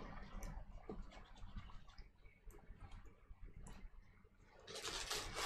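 Faint small clicks and scrapes of Glock 23 pistol parts being handled during reassembly, with a longer, louder scraping rustle near the end.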